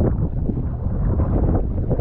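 Strong wind buffeting the microphone: a loud, low rumbling noise that rises and falls unevenly with the gusts.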